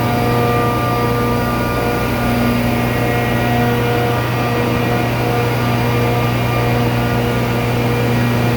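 400 hp R-717 (ammonia) low-side booster compressor running steadily: a loud, even machine drone with a strong low hum and several steady higher tones above it.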